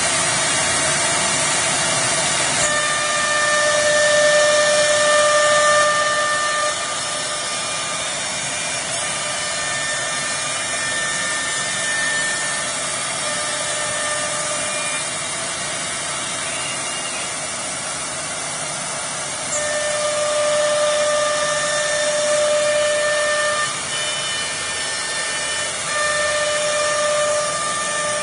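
Four-spindle CNC router running: a steady machine noise with a whine that comes and goes several times, in stretches of a few seconds each.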